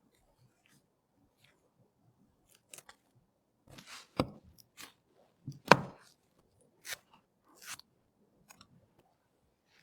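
Scattered clicks, taps and knocks of computer hardware being handled during a PC build. The two loudest knocks come about four and five and a half seconds in.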